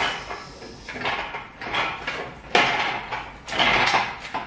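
Irregular scrapes and clunks as an engine hung from an engine crane is pulled out of a car's engine bay, coming in short bursts every half second to a second.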